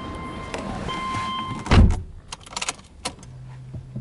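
Subaru Legacy Touring Wagon 2.0GT's in-car warning buzzer beeping in long, even pulses while the driver's door is open, then the door shut with a heavy thud about two seconds in, which stops the beeping. Then come a few small clicks and a faint low hum as the ignition is switched on.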